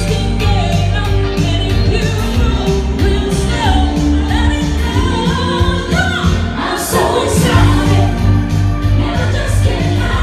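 Live band playing a rock-and-roll style song with a sung vocal line over bass and drums.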